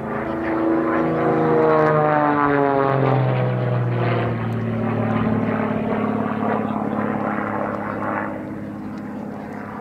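XtremeAir XA-41 aerobatic plane's piston engine and propeller running under power, its pitch sliding down over the first few seconds and then holding steadier. It is loudest early on and eases a little near the end.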